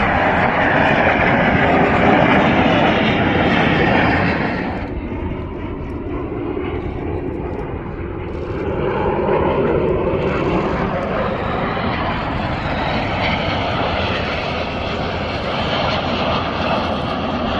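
Snowbirds' Canadair CT-114 Tutor jets flying past: loud jet engine noise that falls away suddenly about four and a half seconds in, then builds up again from about nine seconds as aircraft approach once more.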